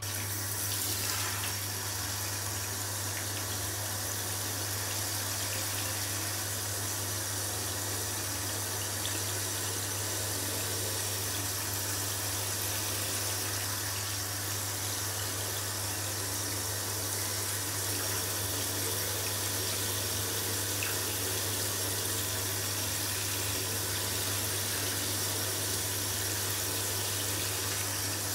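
Handheld shower head spraying water steadily onto a K&N pleated cotton air filter in a bathtub, rinsing the cleaner out of it. The spray comes on suddenly at the start and runs on as an even hiss.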